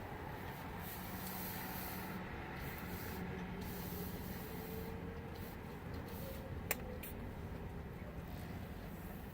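Steady engine and road noise heard inside a moving car's cabin, with a faint rising whine around the middle. Two sharp clicks come close together a little after halfway.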